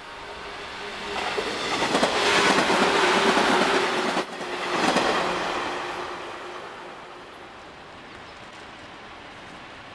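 JR West 115-series electric multiple unit passing close by: wheel and running noise builds over about two seconds, stays loud for about three seconds with a steady hum beneath it, then fades away.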